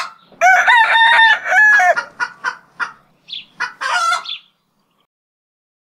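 Ringneck dove giving its laughing call: a rapid series of short notes. A dense run in the first two seconds is followed by a few spaced notes and a last short burst about four seconds in.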